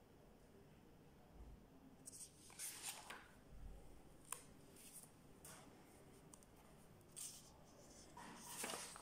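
Faint rustling of paper pages being turned and handled in a bound file, in several short bursts from about two seconds in, with one sharp click near the middle.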